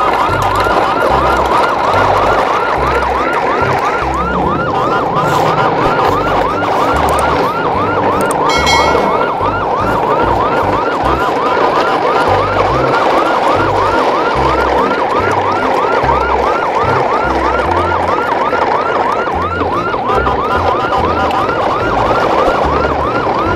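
Electronic siren sound in a fast yelp, a short rising sweep repeated about three times a second over a steady tone.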